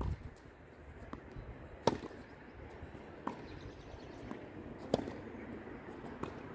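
Tennis ball being hit back and forth in a doubles rally: sharp racket strikes and ball bounces, about six in all, the loudest about two seconds and five seconds in.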